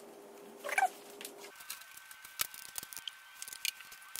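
Light handling sounds of a toothed drive belt being worked onto the supercharger pulleys and idler: a short squeak under a second in, then scattered light clicks and taps.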